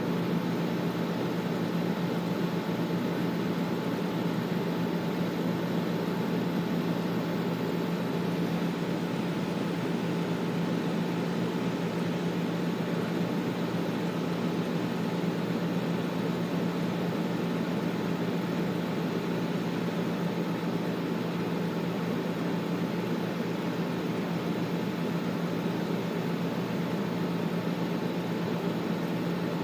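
Air conditioner running steadily: an even rush of fan and air noise with a steady low hum beneath it.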